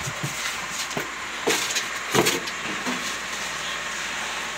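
Plastic packaging bag rustling and crinkling as it is pulled off an air fryer, with a few sharp crackles of the wrapping and foam packing between one and two seconds in.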